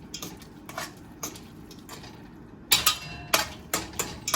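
A metal fork stirring and clinking against a pan. There are light taps at first, then a run of sharper clinks from about two and a half seconds in.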